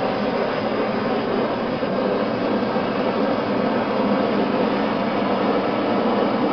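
Handheld gas torch burning with a steady hiss, its flame played over a closed clay form on the wheel to heat the air sealed inside so that the form swells.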